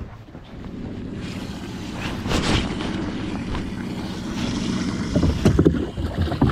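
Low steady hum of a boat's motor with wind buffeting the microphone, broken by a few sudden louder sounds about two and a half and five seconds in.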